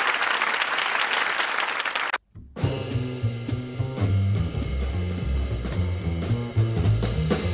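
Live audience applause, cut off suddenly about two seconds in, then a brief dropout. A jazz group then starts playing, with a stepping low bass line, drum kit with cymbal hits, and piano, heard from a cassette tape recording of an FM radio broadcast.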